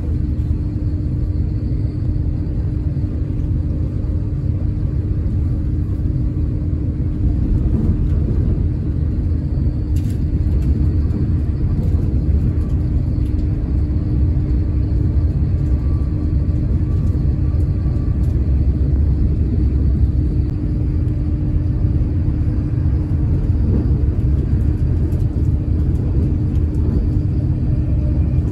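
Steady low rumble of an LNER Azuma train running at speed, heard from inside the passenger carriage, with a constant hum just above the rumble.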